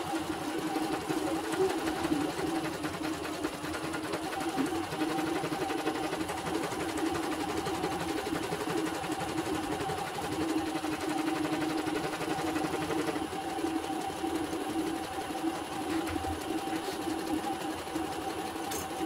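CNY portable embroidery machine stitching out a design, its needle mechanism and moving hoop running steadily without a stop.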